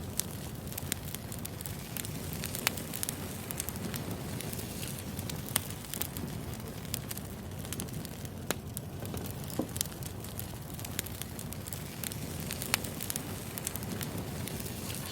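Wood fire burning: a steady low rush of flames with irregular sharp crackles and pops, a few of them louder than the rest.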